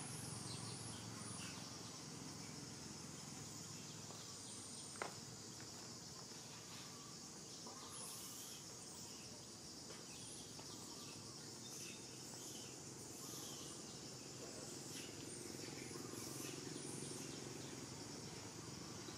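Faint forest ambience: a steady insect chorus with scattered short bird chirps, and a single sharp click about five seconds in.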